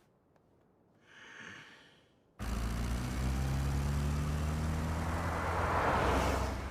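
A short breathy sound about a second in. Then a chainsaw sound effect starts suddenly and runs loud and steady, getting louder near the end.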